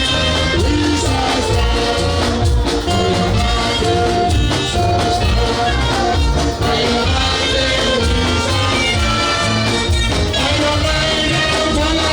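Music with singing and a steady, strong bass beat.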